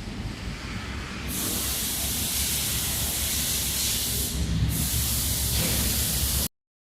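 A steady spraying hiss starts about a second in, breaks off briefly, resumes, then cuts off suddenly, over a low rumble.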